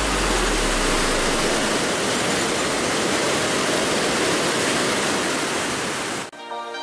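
Willow River Falls, a multi-tiered waterfall, rushing steadily as a dense, even roar of water. About six seconds in it cuts off abruptly and soft music begins.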